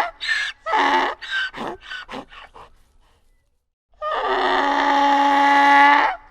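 Donkey braying: a string of short, rhythmic hee-haw calls that fade out over the first two and a half seconds, then after a short silence a long drawn-out call of about two seconds.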